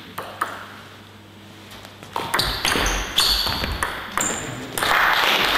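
Table tennis ball in play: a couple of sharp pings, then from about two seconds in a fast rally of pings as the celluloid ball strikes the bats and table. Near the end the point is won and the spectators break into applause and shouts.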